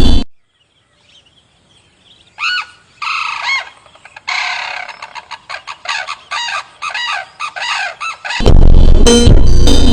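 A bird calling: a few separate calls that rise and fall in pitch, then a quick run of short repeated calls. Loud music cuts off just as the calls begin and comes back in near the end.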